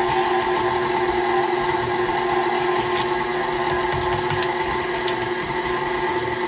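KitchenAid Classic stand mixer running steadily, its flat beater turning through thick quick-bread batter in a steel bowl, with a few faint ticks.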